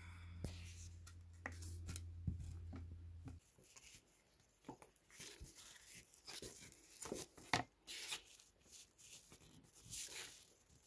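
Small scrapes, clicks and taps of plastic opening cards working at the glued seam of a phone being pried open. A low steady hum underneath stops about three seconds in.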